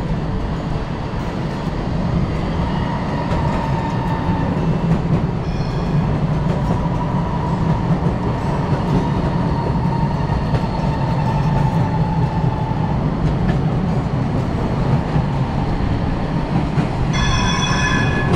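Metro train running: a steady loud low rumble with a thin whine that slides slightly lower, and a brief higher multi-note tone near the end.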